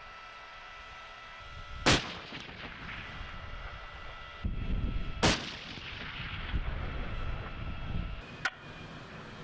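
Abrams tank 120 mm main gun firing: two loud sharp blasts about three and a half seconds apart, each trailing off in a fading echo, then a fainter shot near the end.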